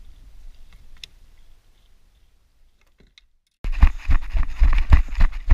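A few faint clicks, then after a cut, heavy footsteps at about three a second crunching over a stony, weed-covered shore.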